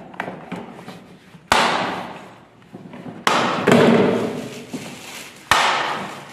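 Hard plastic wheel of a ride-on toy car being fitted onto its axle by hand: three sudden knocks, about two seconds apart, each trailing off into a fading rattle.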